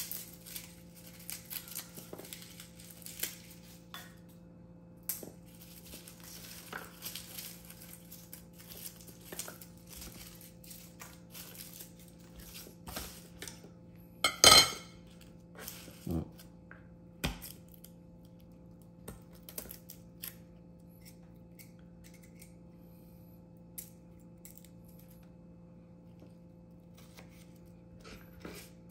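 Kitchen handling sounds while garlic cloves are prepared: a run of light taps and clicks of knife, cloves and dishes. One loud clatter comes about halfway through, followed by a few single knocks and then only scattered soft ticks.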